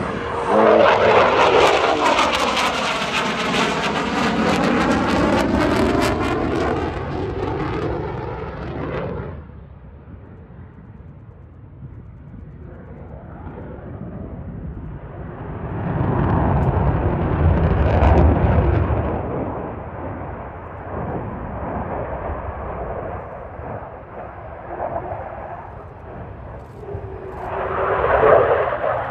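Boeing F-15QA fighter's twin jet engines, loud and sweeping in pitch as the jet passes close, fading about nine seconds in. The roar swells again to a second peak in the middle and builds once more near the end as the jet manoeuvres around the display.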